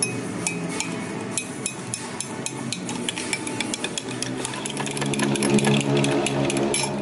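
A kitchen utensil clinks and taps rapidly and repeatedly against a dish.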